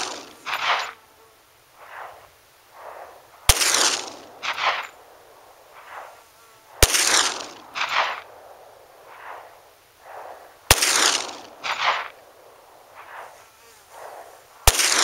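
Four single pistol shots from a Glock 20 in 10mm Auto, spaced about three to four seconds apart, each followed by trailing echoes.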